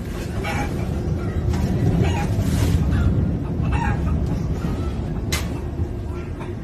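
Recorded chicken clucking played through a Bluetooth speaker, coming in short irregular calls, over the steady low rumble of a moving train carriage.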